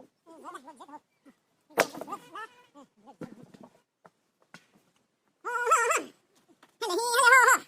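Several short, quavering animal bleats, the two loudest near the end.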